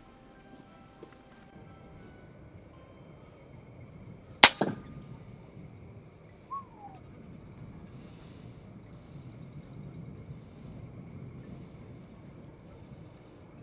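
One shot from an FX Impact M3 .177 PCP air rifle firing a 16-grain H&N slug: a single sharp crack about four and a half seconds in, followed by the slug's solid thud on the target. Crickets chirp in a steady pulsing trill throughout.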